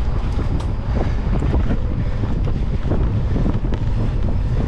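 Wind rushing over the microphone of a camera riding on a moving mountain bike, with scattered clicks and rattles from the bike and its tyres on a dirt singletrack.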